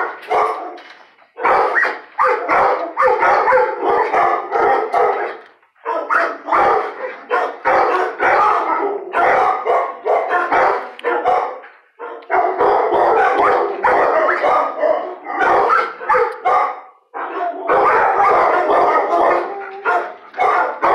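Dogs barking and howling in dense, loud bouts of a few seconds, with short breaks about a second in, near six seconds, at twelve and at seventeen.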